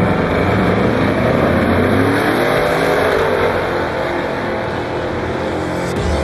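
Two Mopar drag cars launching and accelerating hard down the drag strip, the engine note climbing in pitch as they pull away, then easing a little as they get further off.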